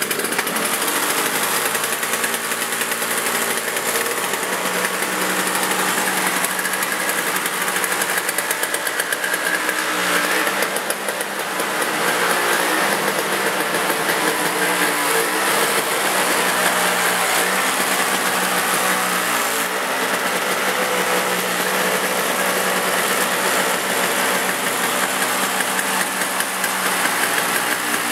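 A Toro CCR 2450 snowblower's 5 hp R-Tek two-stroke engine, running on 50:1 premix, runs steadily just after a cold start with the choke on. Its speed hunts a little now and then, as a cold engine left unused for a year does.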